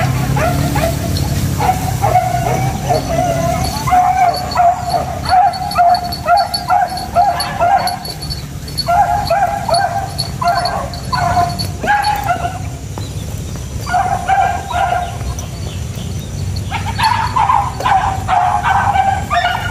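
Hunting dogs (beagles and village dogs) yelping and baying in repeated bouts of a few seconds each, with short pauses between: a pack giving voice while hunting a mongoose.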